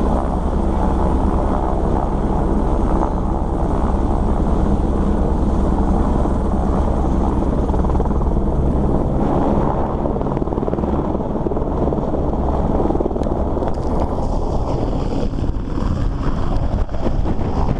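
Single-engine helicopter running close by with a steady rotor beat, then lifting off and climbing away overhead in the second half. Rotor downwash buffets the microphone near the end.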